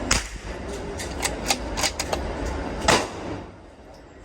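Sharp cracks and clicks of .22 LR rifle fire at a range over a steady low rumble: a loud crack near the start and another about three seconds in, with a quick run of smaller clicks between them. The rumble fades near the end.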